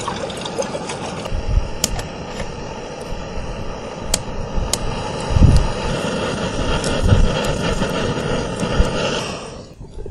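Small backpacking stove burner running with a steady hiss under a metal cup, with sharp crackles from a campfire and a few low handling thumps. The burner hiss cuts off abruptly near the end.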